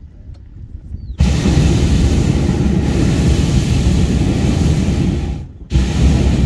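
Hot-air balloon's propane burner firing close overhead: a loud, steady blast that cuts in about a second in, dies away for a moment near the end, then fires again.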